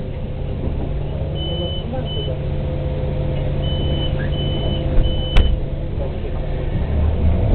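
City bus engine idling with a steady low hum while an electronic beeper gives five short high beeps, followed by a sharp click about five seconds in.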